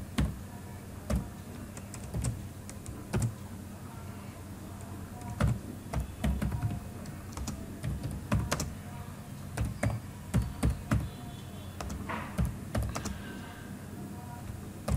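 Typing on a computer keyboard: irregular runs of key clicks with short pauses between words, over a low steady hum.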